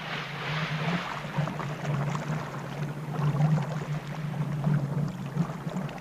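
Water splashing and churning as divers plunge in and swim at the surface, strongest in the first second, over a steady low hum.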